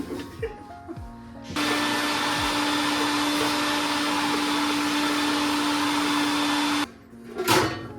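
Cordless drill spinning a drill brush attachment. It starts suddenly about a second and a half in, runs with a steady hum and a rushing hiss for about five seconds, then cuts off abruptly.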